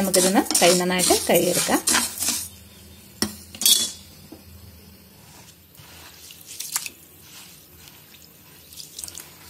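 Spatula stirring dry raw rice and moong dal in a nonstick pan, the grains rattling and scraping against the pan, over a voice for the first two seconds. Then two sharp clinks a moment apart, likely the spatula against the pan, and quieter sounds of hands swishing the grains in a bowl of water near the end.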